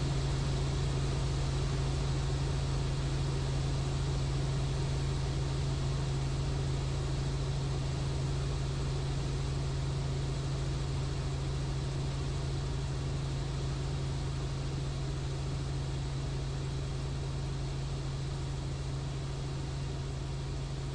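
Robinson R44 helicopter's engine and rotor running with a steady drone, heard from inside the cabin while it sits on the ground just before shutdown. The level eases down slightly over the stretch.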